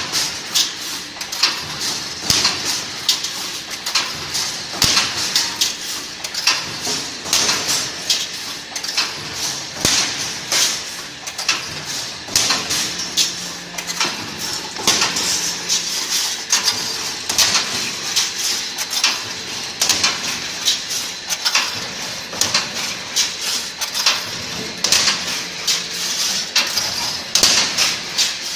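Wire-mesh welding machine running, with repeated metallic clanks and clicks over a steady hiss as it works.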